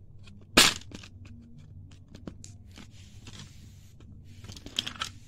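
Metal geometry box and its plastic tray being handled: a sharp click about half a second in, then light clicks and rattles, with a quick cluster of them near the end.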